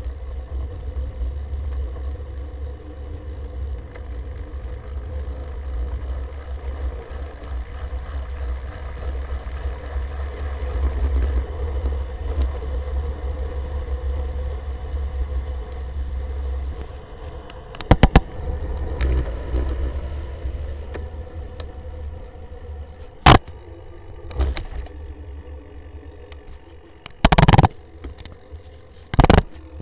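Wind buffeting the microphone and road rumble from a recumbent bicycle riding along a street. The deep rumble eases a little over halfway through, and several sharp knocks follow in the last third.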